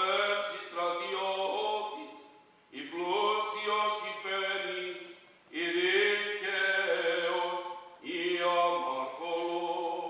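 A man's voice singing Greek Orthodox funeral chant unaccompanied, in four long melodic phrases with short breaks between them.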